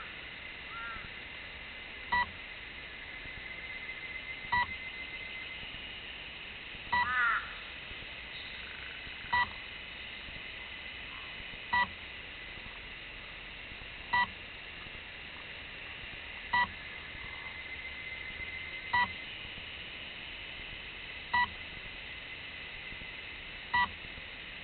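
Short electronic beep repeating steadily about every two and a half seconds from the electronics of a crashed RC flying wing. A bird call with a rising pitch cuts in about seven seconds in.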